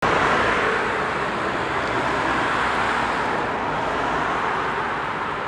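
Steady outdoor traffic noise, an even rushing hum that starts suddenly and eases off slightly.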